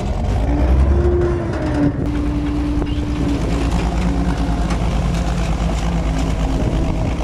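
McCormick tractor engine under load, pulling a stuck combine out of mud by chain. The revs rise about a second in, then hold steady.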